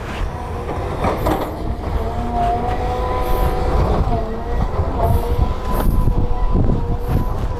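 Volvo crawler excavator working, its diesel engine running steadily with a constant whine, and now and then a knock as the bucket works into broken stone.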